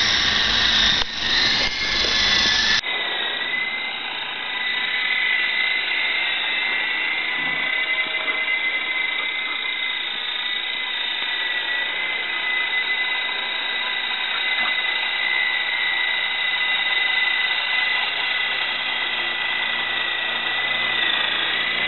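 Electric motors and rotor blades of a Lama V3 coaxial RC helicopter in flight, a steady high whine that wavers slightly in pitch. The sound changes abruptly about three seconds in, where one flight clip cuts to another.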